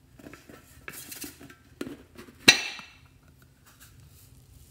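A round metal candy tin handled with small clicks and knocks, then a sharp clank with a brief ring about halfway through as its lid comes off. Near the end a faint patter as foam beads begin to pour out of it.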